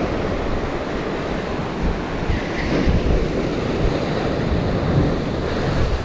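Ocean surf breaking and washing over lava rocks, a steady rushing roar, with wind buffeting the microphone.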